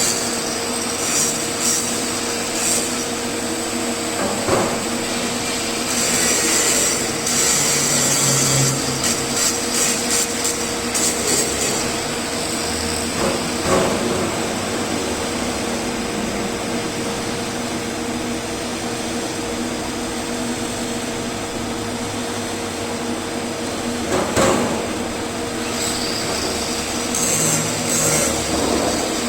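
TIG welding arc burning steadily at about 120 amps: a continuous hiss with a constant hum-like tone, broken by a few faint ticks.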